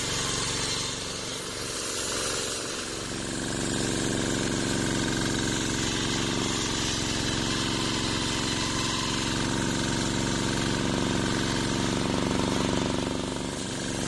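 Homemade engine-driven circular sawmill ripping a waru (sea hibiscus) log: a steady engine drone under the blade's continuous cutting hiss. The sound drops briefly about two seconds in and again near the end.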